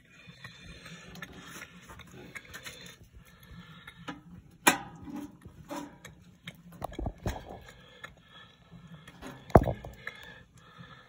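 A few sharp knocks, the loudest about four and a half and nine and a half seconds in, over a faint steady background with scattered small clicks.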